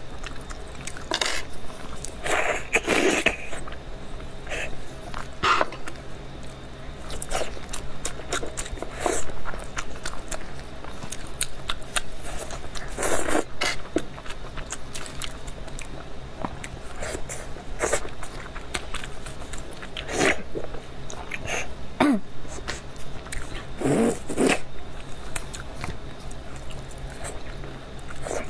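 Close-miked eating: beef bone marrow, stewed soft, sucked and slurped out of the bone sections, with wet chewing and mouth smacks between. Several louder slurps, about 3 seconds in, around the middle, and twice near the end.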